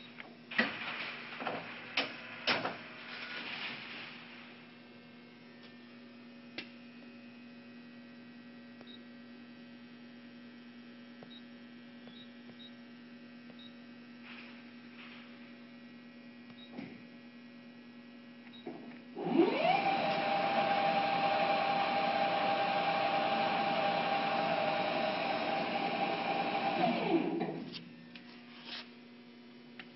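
Clausing CNC lathe's spindle spinning up with a rising whine, running at a steady pitch for about eight seconds, then winding down. Before it, a few sharp clicks and a low steady hum from the idling machine.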